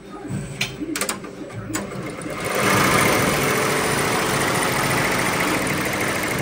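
ZSK multi-needle embroidery machine stitching. A few separate clicks come first, then about two and a half seconds in it gets louder and runs on as a steady, fast mechanical noise.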